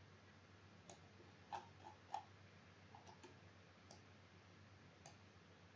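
About eight faint, scattered computer mouse clicks over near-silent room tone; the two loudest come about a second and a half and two seconds in.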